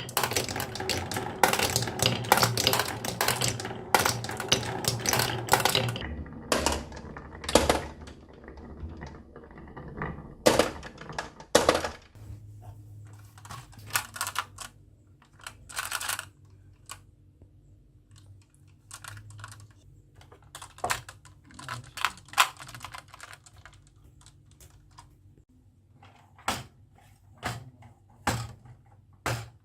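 Marbles clattering and rolling down a wooden marble run: a dense rattle of clicks for about the first six seconds, then scattered single clacks over a faint low rolling rumble.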